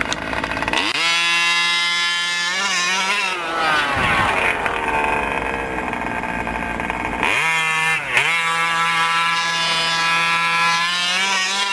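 Losi 5ive-T RC truck's two-stroke gasoline engine held at high revs for about three seconds, dropping off. It runs rougher and lower for a few seconds, then revs back up with a brief dip and holds a high, steady buzz before falling off at the end.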